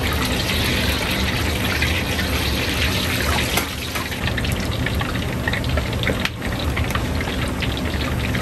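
Hot oil sizzling and crackling in a wok as food deep-fries, louder over the first three seconds or so, with a steady low hum underneath.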